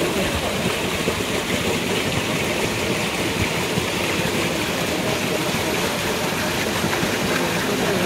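Small waterfall pouring over boulders into a rock pool: a steady, unbroken rush of falling and splashing water.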